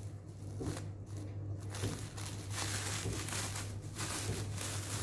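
Plastic cling film crinkling and rustling as it is peeled off a rolled sponge cake, over a low steady hum.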